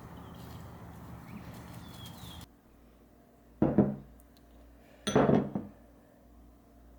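Steady background noise with a low hum and a few faint high chirps, then a sudden drop to quieter surroundings and two short clattering knocks about a second and a half apart, the second one longer.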